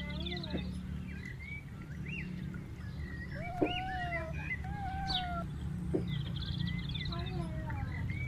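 Birds chirping and calling with many short rising and falling notes and a fast rattling trill, over a steady low background rumble; two sharp clicks stand out, about three and a half and six seconds in.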